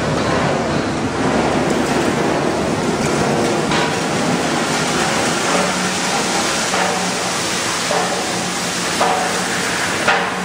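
PET bottle recycling line machinery running: a loud, steady industrial din. A hum comes in about halfway through, and a few sharp knocks sound near the end.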